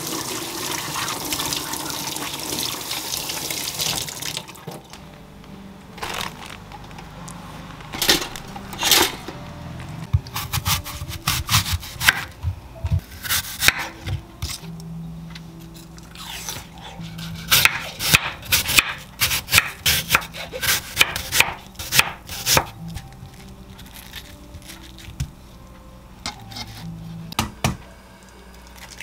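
Kitchen tap running while an apple is scrubbed under it by hand, for about four seconds. Then a kitchen knife slices the apple on a wooden chopping board in a long series of short, sharp knocks, thickest in the middle.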